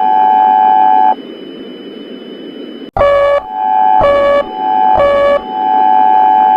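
Electronic emergency alert alarm: a steady high tone broken about once a second by a harsher, lower-pitched buzzing beep. It cuts out about a second in, leaving only a low hiss for about two seconds, then the beeps and the steady tone start again.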